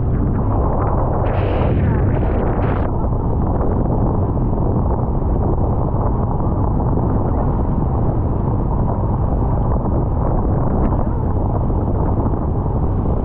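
Wind buffeting the microphone over the steady rumble of a rigid inflatable boat's engine running at speed through choppy water, with a few short hissing bursts in the first three seconds.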